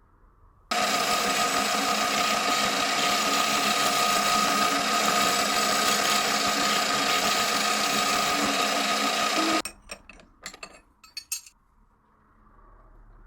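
A power milling tool runs steadily at speed, cutting into the slide of a VFC Glock 45 airsoft pistol. It starts abruptly about a second in and cuts off about ten seconds in, followed by a few sharp clicks and knocks.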